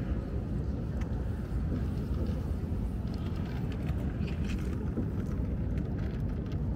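Steady low rumble of open-air park ambience, with a few faint scattered ticks.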